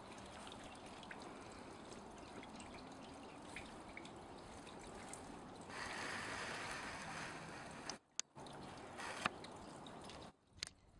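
Faint scraping and trickling of loose garden soil as bare hands press and pack it around a newly set plant, over a steady low hiss. The sound drops out briefly twice near the end.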